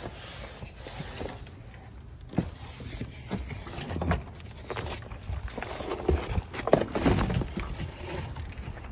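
Footsteps on gravel, an irregular run of steps that is loudest about two-thirds of the way through.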